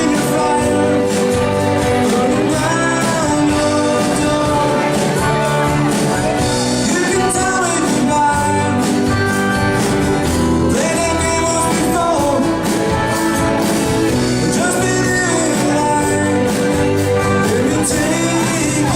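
A live band playing a rock song, with a singer over drums and other amplified instruments.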